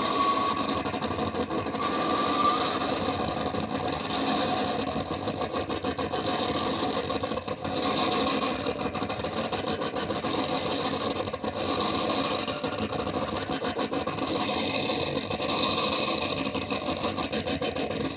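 Electronic noise drone from a Hexe drone fed through an Elta filter, overdrive pedals and a Cloud Buster delay: a dense, steady wash of gritty noise with no clear note.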